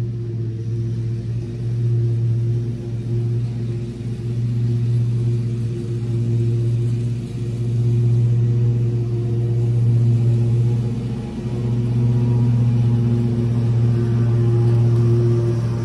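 Lawn mower engine running steadily, growing louder and fainter by turns as the mower moves back and forth across the lawn.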